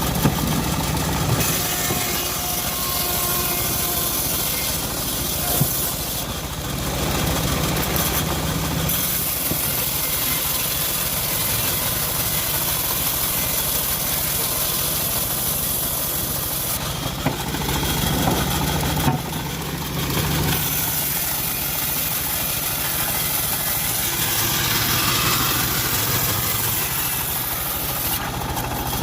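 Engine-driven homemade bandsaw mill running steadily while it saws a teak log, with a high hiss of the blade cutting that comes and goes and a few light knocks.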